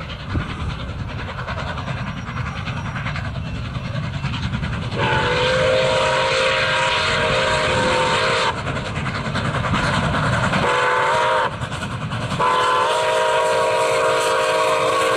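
Steam locomotive whistle of Milwaukee Road 4-8-4 No. 261 sounding a chord: one long blast about five seconds in, a short blast, then another long blast near the end. Before it, the heavy low rumble of the passing steam train.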